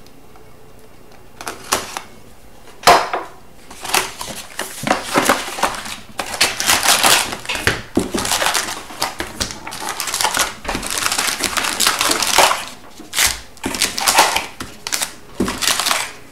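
A cardboard hobby box of hockey cards being cut open with a utility knife, then paper-and-cardboard rustling and foil card packs crinkling as the tray and packs are pulled out. There are a couple of sharp clicks a couple of seconds in, then a long run of crackling handling noise.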